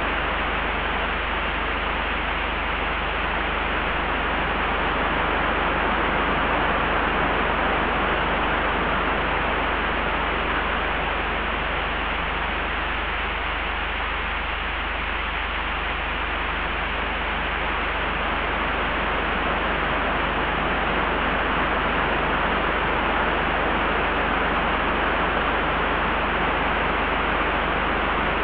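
Layered ambience of wind: a steady rushing hiss that swells and eases slowly, over a constant low rumble.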